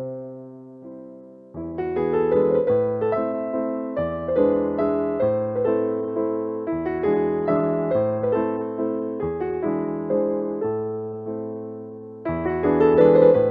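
Background music: a gentle piano or electric-piano tune, the notes struck in a steady rhythm, softer for about the first second and a half.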